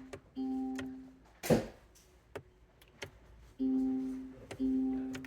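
Vehicle warning chime sounding two pitched tones in a row, each fading over about a second, then the same pair again about three seconds later; a sharp click comes between them. Typical of the car refusing to start with no immobiliser ID tag present.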